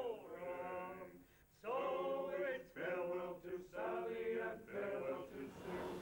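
Men's voices singing a slow, chant-like song in held phrases of about a second each, with a short break about a second and a half in.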